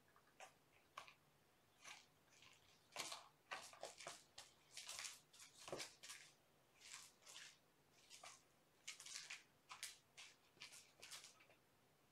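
Faint, irregular short scratchy rustles of a kitten wrestling a rabbit-fur toy mouse on a cardboard scratcher pad, its claws scraping the cardboard as it grabs and rolls with the toy.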